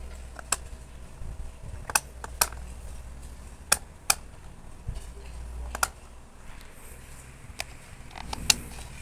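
Khind CF60 60-inch industrial ceiling fan running with a steady low hum, broken by sharp clicks at irregular intervals, about eight in all.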